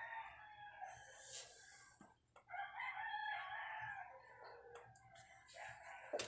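Roosters crowing faintly: two long crows, one after the other, each over a second long. A sharp knock comes near the end.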